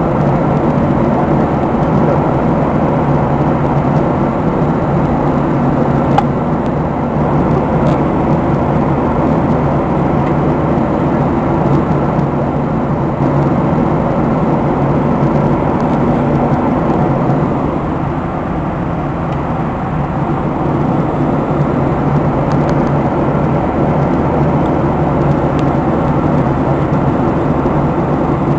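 Steady jet airliner cabin noise during the approach to landing: a loud drone of engines and airflow, with a thin high whine above it.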